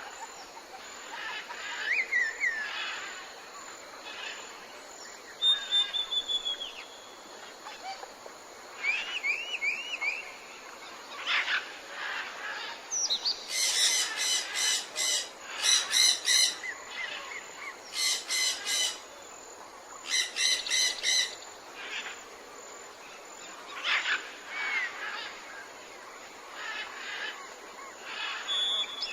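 Mixed chorus of tropical jungle birds calling: short whistles sliding up and down and scattered chirps over a steady hiss of forest ambience, with three bursts of rapid, buzzy trills in the middle.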